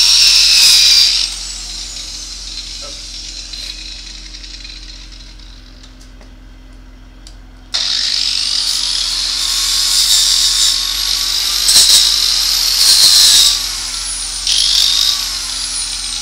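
Electric angle grinder whining at speed, switched off about a second in and winding down. It is switched on again partway through, spins back up to a high whine, and grinds against the wrought-iron stand in a few short, louder passes.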